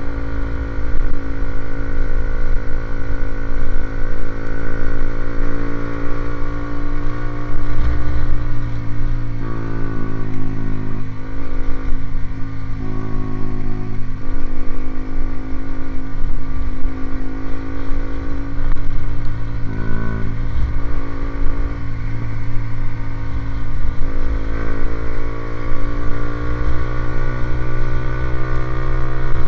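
Motorcycle engine running through an aftermarket racing exhaust, held at a steady speed with small dips and rises in engine speed now and then.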